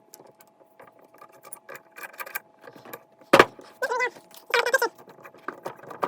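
Clicking and rattling of a cordless hammer drill and its plastic and metal parts being handled and fitted together, with one sharp click about three and a half seconds in and two brief squeaks just after.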